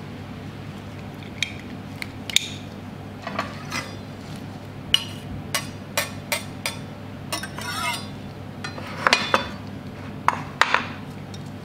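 Metal garlic press clicking and clacking as garlic cloves are crushed into a small ceramic dish, with a knife scraping the press about two-thirds of the way through and sharp clinks against the dish near the end.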